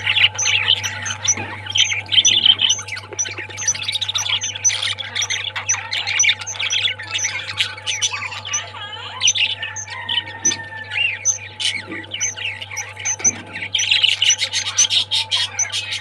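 A flock of budgerigars chattering, chirping and squawking non-stop, with a high peep repeating about three times a second. A steady low hum runs underneath.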